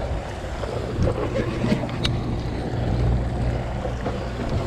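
Steady low drone of a sportfishing boat's engines, with wind and water noise and a few sharp clicks, one about two seconds in.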